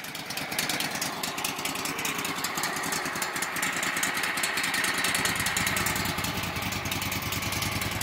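The Kohler Command PRO gasoline engine of a Wood-Mizer LT15 sawmill running steadily, freshly started.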